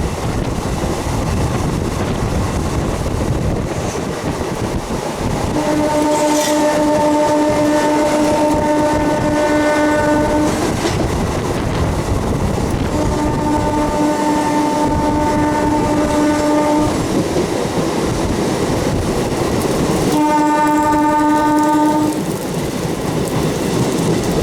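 MEMU train running, heard from on board with a steady rumble, while its horn sounds three long, steady blasts. The first blast lasts about five seconds, the second about four and the last about two.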